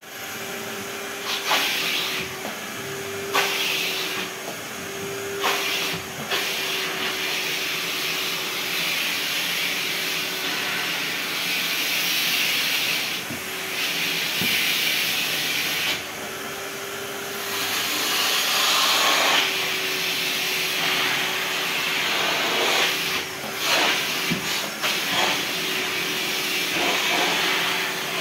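Vacuum cleaner running steadily with a motor whine, its hand nozzle sucking over velvet sofa upholstery. The suction hiss swells and drops as the nozzle is pressed onto and lifted off the fabric, with occasional knocks of the nozzle.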